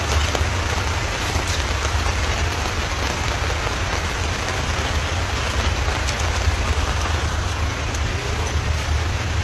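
Steady rain falling, an even hiss of drops with a constant low rumble beneath.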